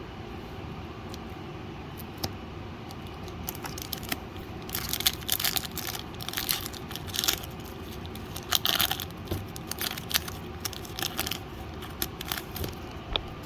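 Pokémon booster pack foil wrapper being torn open and crinkled, in irregular crackling bursts starting about three or four seconds in, over a steady low hum.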